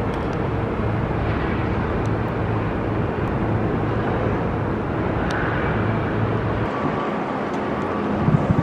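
Steady city traffic noise: a continuous rumble with a low engine-like hum, the hum dropping away about three-quarters of the way through.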